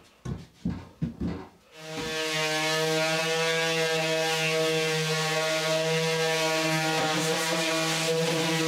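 A few knocks, then a steady hum starts about two seconds in and holds one constant pitch.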